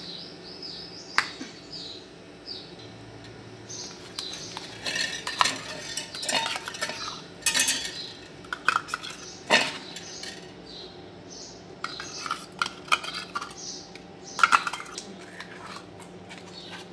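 Metal cans knocked and scraped against a stainless-steel bowl as thick cream is tipped and shaken out of them: scattered clinks and scrapes, the sharpest about a second in, near the middle and a couple of seconds before the end.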